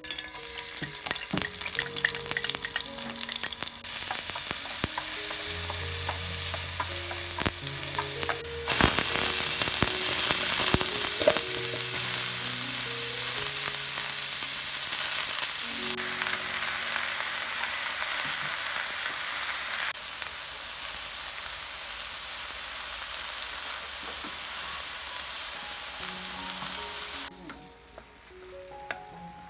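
Shredded cabbage sizzling in hot oil in a frying pan while being stirred with chopsticks. The sizzle starts softly, grows much louder about nine seconds in and drops off sharply near the end.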